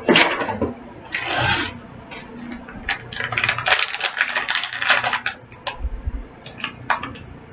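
Packaging being handled during an unboxing: a short rustle about a second in, a dense run of crinkling and clicking from about three to five seconds in, then a few scattered clicks.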